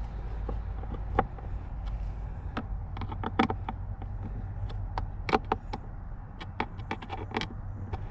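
Irregular sharp clicks and taps of a hand screwdriver and plastic trim as Phillips screws are tightened into a car's center console armrest lid.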